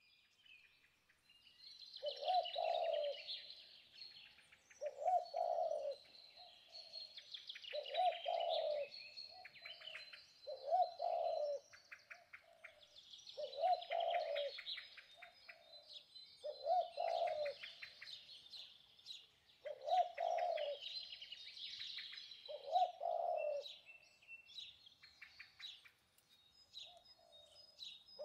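A dove cooing over and over, one short low call about every three seconds, while small birds chirp and twitter busily over it.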